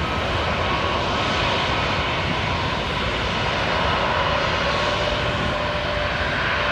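Airbus A321neo taxiing, its twin turbofan engines at low taxi thrust giving a steady rushing noise with a faint even whine over it.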